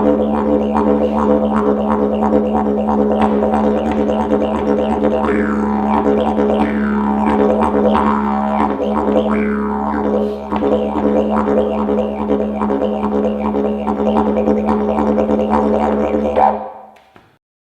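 Didgeridoo played with the wobble technique: a steady low drone under quick rhythmic pulses, its overtones sweeping up and down. It plays without a break and stops near the end.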